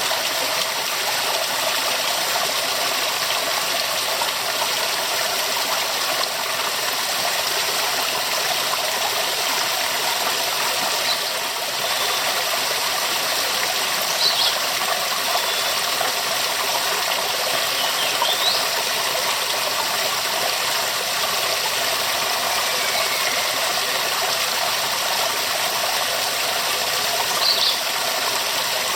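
Waterfall: a steady, dense rush of falling water, weighted toward the higher pitches with little low rumble. A few brief high chirps rise over it now and then, the last near the end.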